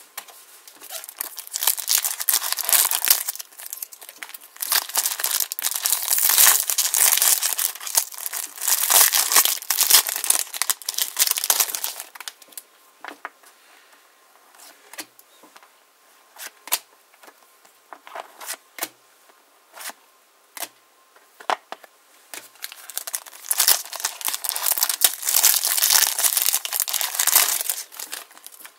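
Foil wrappers of Match Attax trading-card booster packs crinkling and tearing as they are opened, in two long stretches, with a quieter spell of scattered light clicks and taps from the cards being handled in between.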